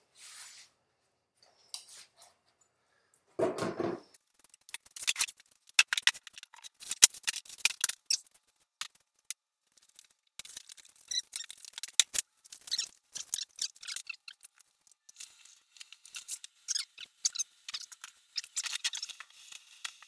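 Thin sheet-metal duct fittings scraping, creaking and clicking as they are twisted and pushed together, with one dull thump about three and a half seconds in.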